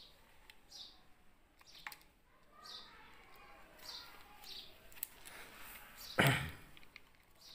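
Hands working on an electronic distributor with a screwdriver: small clicks of parts and tool, and one louder knock about six seconds in. A bird chirps faintly in the background about once a second.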